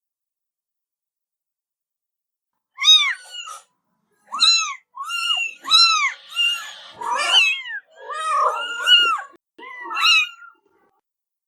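Domestic cat meowing repeatedly: after about three seconds of silence, a run of eight or nine short, high meows, each rising and falling in pitch, a few overlapping near the middle.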